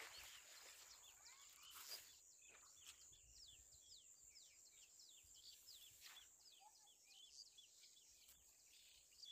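Faint chirping of small birds: many quick, downward-sweeping chirps in close succession, over a steady high hiss, with a couple of soft knocks.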